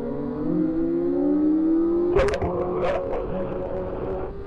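Kawasaki Ninja sport bike engine accelerating hard, its pitch rising steadily, then crackling twice about two and three seconds in as the KTRC traction control cuts power when the rear tyre slips, after which the revs hold level.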